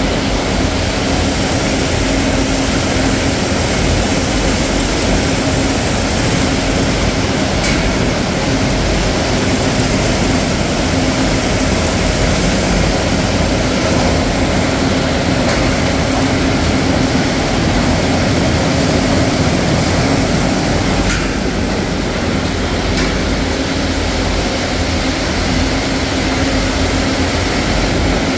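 Crab meat processing machinery running steadily: a constant loud mechanical hum of motors and rollers, with a few faint clicks.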